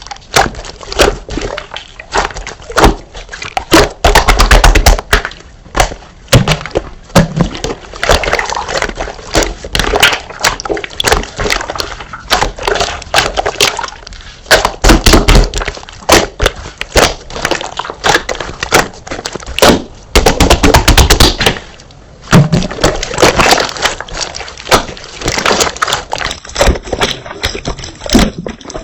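Slime being pressed, poked and squished by hand, giving dense crackling and popping clicks in irregular bursts.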